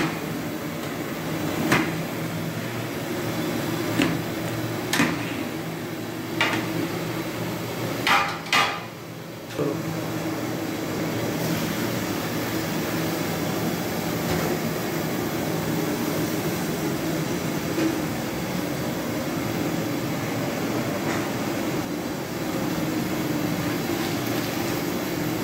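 A metal ladle knocks about seven times against the rim of a large aluminium cooking pot while stirring. Then comes a steady stream of liquid poured from a steel jug.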